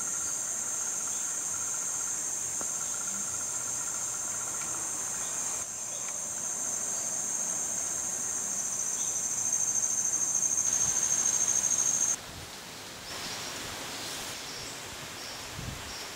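Insects buzzing in a steady, high-pitched drone that stops suddenly about twelve seconds in; fainter short chirps repeat after it.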